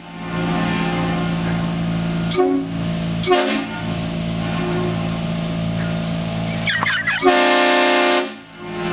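Hornblasters air train horns on a 2007 Chevy Colorado, fed from a 150 psi tank, sounding a loud chord of several tones in long held blasts. There are short breaks about two and a half and three and a half seconds in, and a last blast that cuts off near the end.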